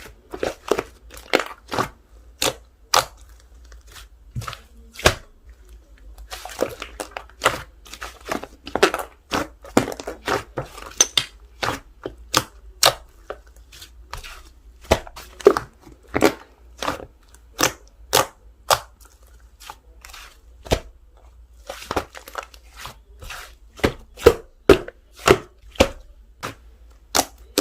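Slime being pressed, folded and mixed by hand, giving irregular sharp pops and clicks, about two or three a second, with stretches of softer crackling in between.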